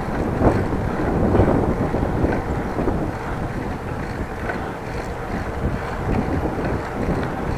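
Wind buffeting an action camera's microphone while riding a bicycle: a steady, uneven rushing rumble.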